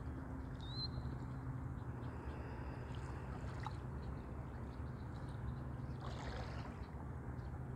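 Steady outdoor background noise with a low, even hum underneath, and a faint short high chirp under a second in.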